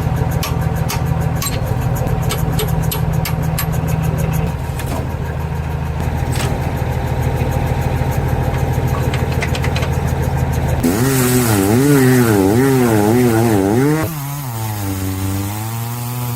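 A motor running steadily with rapid ticking for about eleven seconds, then its pitch rising and falling again and again.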